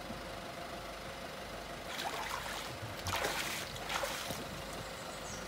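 Shallow water sloshing and splashing against a small boat's hull as it is eased onto a trailer's centre rollers, in three short splashes about two, three and four seconds in. Under it, the steady hum of the towing van's engine left idling.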